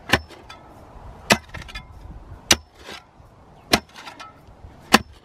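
Spade blade jabbed down into hard, stony ground at the bottom of a post hole: five sharp strikes about a second apart.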